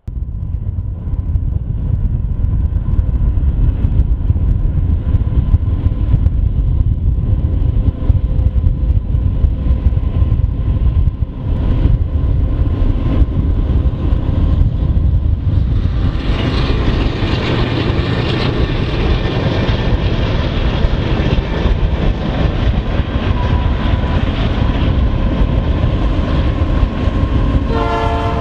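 Canadian Pacific diesel freight locomotives running as an intermodal freight train approaches, a deep steady rumble. About halfway through it gets louder and brighter, with the train close by.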